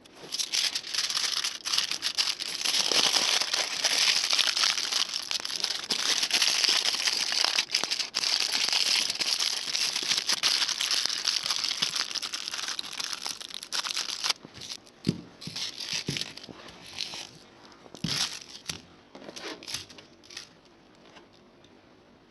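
Crinkling and rustling handling noise, dense and continuous for about fourteen seconds, then breaking into scattered crackles and taps that die away near the end.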